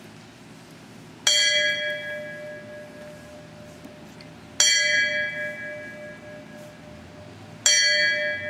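A bell struck three times, about three seconds apart, each strike ringing on and fading: the firefighters' traditional three rings that signal the end of an alarm, rung here in memory of a fallen member.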